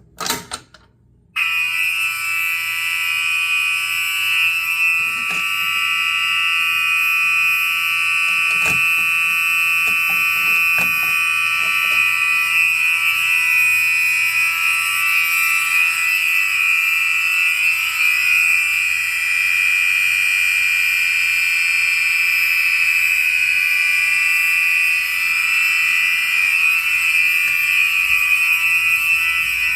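Several Gentex SHG fire alarm horn-strobes start sounding together about a second in, set off from a manual pull station. They give one loud, steady, unbroken horn tone in continuous rather than coded mode.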